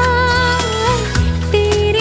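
Background Punjabi love song: a singer holds a long, slightly wavering note over steady instrumental accompaniment, then starts the next line near the end.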